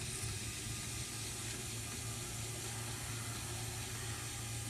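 Automatic car power antenna motor running steadily, retracting the telescoping mast after its 12-volt power is cut: a low even hum with a hiss over it.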